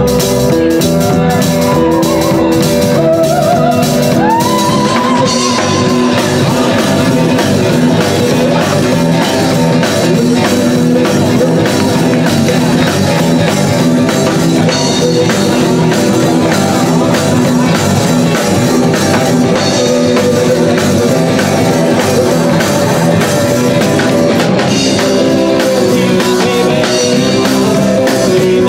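Live rock'n'roll band playing loudly on electric guitars and a drum kit with a steady beat, with a sung line in the first few seconds.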